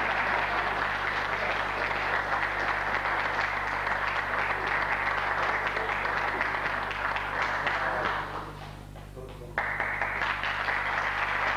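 Audience applauding. The clapping fades down about eight seconds in and then cuts back in suddenly at full strength a second and a half later.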